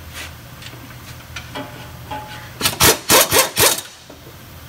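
Cordless impact wrench hammering in a quick run of about four short bursts around three seconds in, loosening a bolt.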